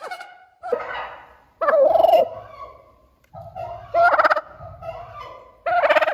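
Domestic white turkey toms gobbling: a rapid, rattling call repeated about four times, a second or two apart.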